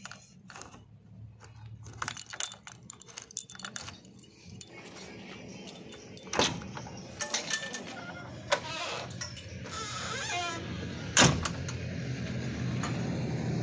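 Keys jangling and metal clicking as the key is worked in the cab door lock of a JCB 3DX backhoe loader and the door is opened. There is a sharp clunk about six seconds in and a louder one about eleven seconds in, from the door latch and handle.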